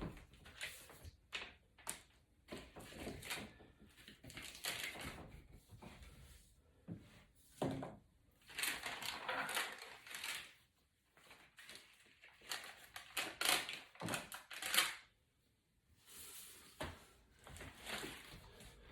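Scattered clicks, knocks and scraping on the aluminium housing of an iPad as a dent in its side edge is worked out, with a couple of longer rubbing, scraping stretches.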